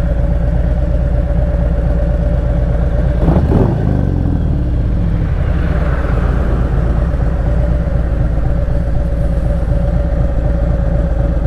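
Harley-Davidson Road Glide's V-twin engine running steadily while riding. About three and a half seconds in there is a brief louder sweep that falls in pitch.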